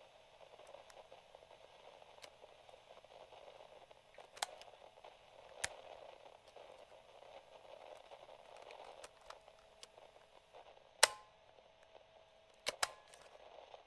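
A faint steady hiss with a few small clicks, then a loud mechanical click about eleven seconds in as a piano-key transport button on a vintage Sony cassette player is pushed down and latches, followed by two quicker clicks near the end.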